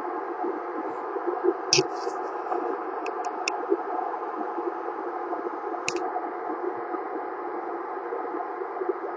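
Galaxy AM/SSB base station CB radio's speaker hissing with steady receiver static, with a few sharp clicks about two seconds in, a quick run of them around three and a half seconds, and one more near six seconds.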